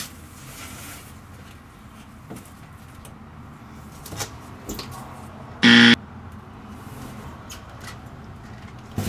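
A few light knocks and rubs as a cardboard cabinet door is handled, then one short, loud, buzzer-like pitched tone, about a third of a second long, a little past halfway.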